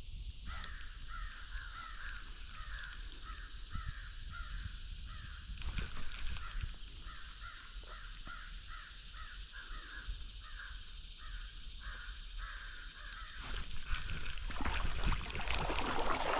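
An animal call repeated over and over at an even pace, about two short calls a second, with one brief pause midway. Splashing noise builds near the end.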